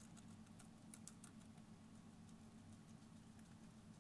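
Faint, crisp clicks of a Syrian hamster nibbling a cabbage leaf, most of them in the first second and a half, over a low steady hum.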